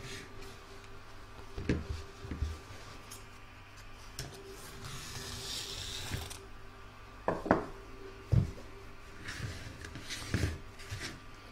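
Washaway stabilizer rustling as it is unrolled and cut from the roll with scissors, a hissy rasping stretch in the middle, with a few light knocks as the plastic embroidery hoop is handled on the cutting mat.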